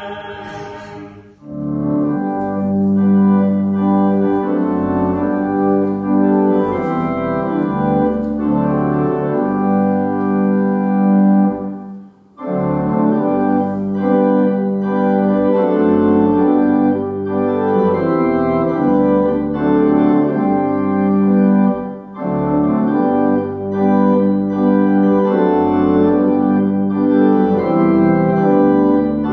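Unaccompanied voices singing stop about a second in. Then an organ plays a hymn tune in slow held chords, breaking off briefly between phrases about twelve seconds in.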